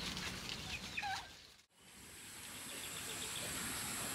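Domestic turkeys giving short, rising yelping calls for about the first second and a half. The sound then drops away briefly and a steady high-pitched hiss follows.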